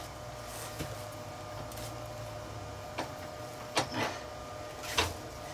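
A few short knocks and clacks as a heavy mesquite log is handled and shifted on a wood lathe, over a steady background hum. The knocks come about three seconds in, twice close together just before four seconds, and once more near five seconds.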